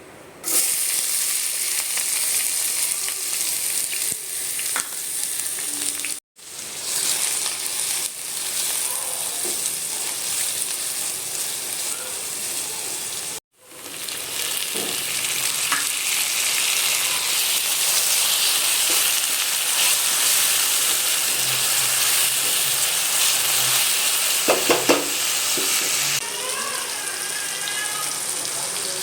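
Food sizzling in hot oil in a cooking pan for kurma, with some stirring and a few sharp knocks late on. The sizzle cuts to silence for a moment twice.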